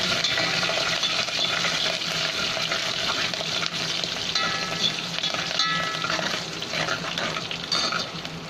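Tadka of mustard seeds, cumin, garlic, coconut and fresh curry leaves sizzling and crackling in hot ghee in a metal pot, stirred with a steel ladle that scrapes and clinks against the pot a few times.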